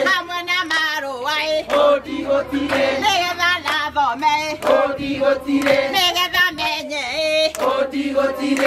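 A group of women singing together, with held, wavering notes that change every half second or so.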